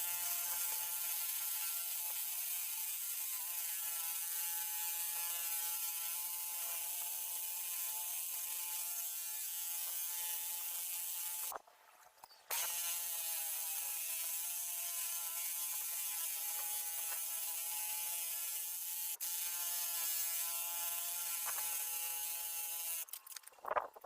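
Bauer rotary hammer running in drill-only mode, with no hammering: a steady motor whine. It stops for about a second halfway through, then runs again and stops near the end.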